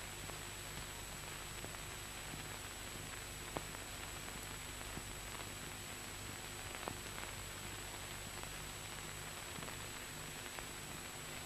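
Steady background hiss and low hum of an old film soundtrack, with a faint steady high whine and a few faint clicks.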